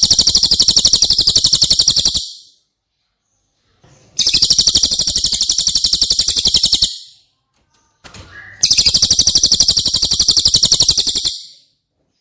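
Cililin bird song: three long, high-pitched, very fast trills, each lasting about two and a half seconds, with short pauses between them.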